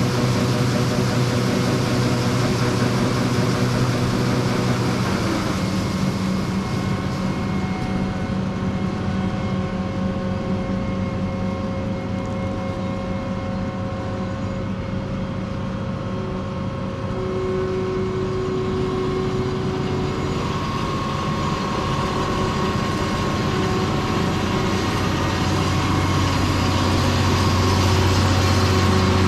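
John Deere 9570 STS combine running steadily while harvesting, several steady engine tones over a constant mechanical hum. The tones shift in pitch about five seconds in, and the sound grows louder toward the end.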